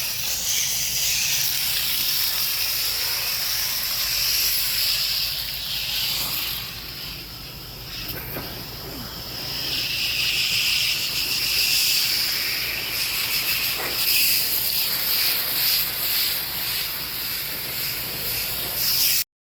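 Coil cleaner hissing steadily as it is sprayed onto a dirty HVAC coil, easing off briefly partway through. It cuts off suddenly near the end.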